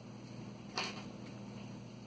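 Fingers handling and pressing a grosgrain ribbon bow: quiet handling with one short, sharp rustle a little under a second in, over a faint steady low hum.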